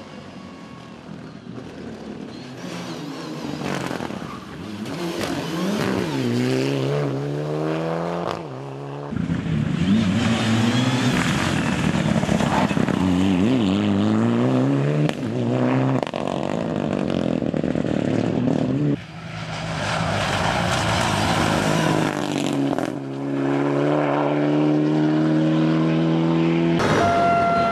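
A Mitsubishi Lancer Evolution rally car's turbocharged four-cylinder engine at hard throttle, revving up through the gears with a short drop in pitch at each shift. The sound comes in several separate passes, and once, past halfway, it breaks off suddenly.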